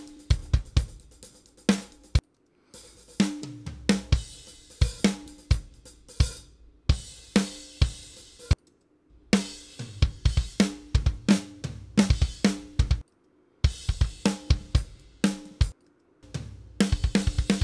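Soloed close-mic kick drum and snare-top tracks from a post-hardcore rock multitrack session playing back: punchy kick and snare hits, the snare ringing with a sustained tone. Playback drops out briefly four times as it moves between parts of the song.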